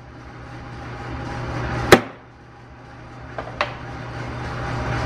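Center punch marking a steel block: one sharp metallic strike about two seconds in, then two lighter taps a second and a half later, over a low steady shop hum.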